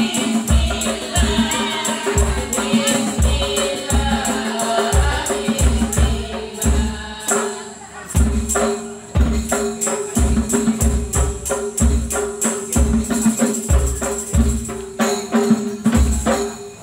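Hadroh ensemble: women singing an Islamic devotional song over rebana frame drums that keep a steady rhythm of deep thumps and sharp slaps. The voices are strongest in the first half, and the drumming carries on to the end.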